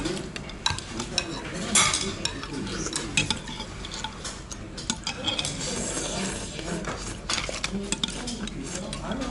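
Cutlery clinking, tapping and scraping against bowls during a meal, in many irregular sharp clicks.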